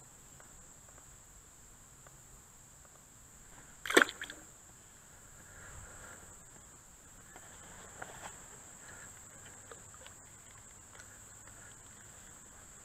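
Steady high-pitched drone of insects along the pond bank, with one sharp knock about four seconds in and a few faint clicks later.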